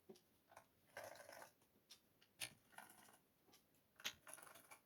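Near silence with a few faint, short clicks and light scrapes from a small PH0 Phillips screwdriver working screws out of a laptop's hard-drive mount: a cluster about a second in, two single ticks midway, and one more near the end.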